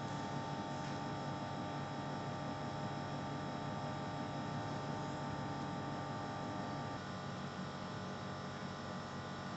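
Steady electrical hum with a buzz; its make-up changes about seven seconds in.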